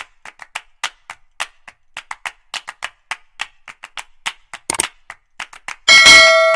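A string of light, sharp clicks, about three a second, then near the end a loud metallic strike that rings on in several steady tones and fades.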